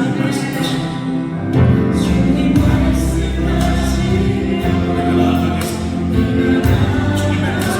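Music with a choir singing over it, to a steady beat; a heavy bass comes in about one and a half seconds in.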